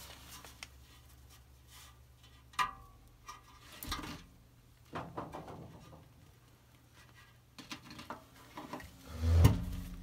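Thin stamped-steel cells of a gas furnace heat exchanger being handled: scattered knocks and light clanks of sheet metal with rubbing between, the loudest knock near the end.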